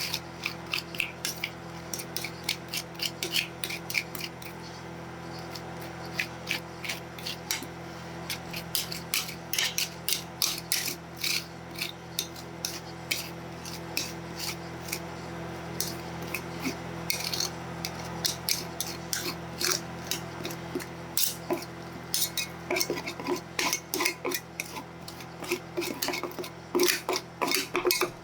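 Metal spatulas repeatedly tapping, chopping and scraping on the steel cold plate of a rolled ice cream machine, with a steady low hum from the machine underneath. The strokes come faster and closer together near the end.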